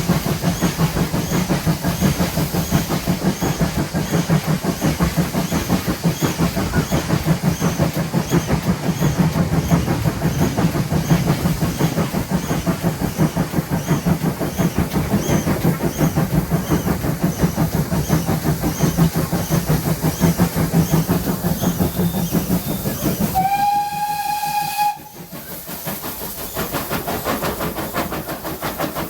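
GWR 5700-class pannier tank steam locomotive working along the line with a rapid rhythmic beat. About 23 seconds in, its whistle gives one steady blast of about a second and a half, after which the running sound is quieter.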